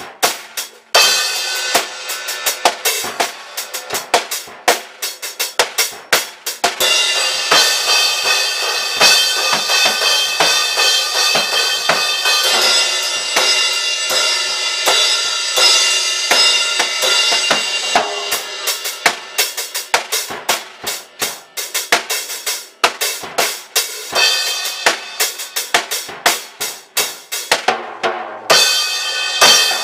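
Drum kit being played: kick and snare strokes in a steady rock beat, with continuous cymbal wash from about seven to seventeen seconds in. Separate drum hits follow, and the cymbals come in again near the end.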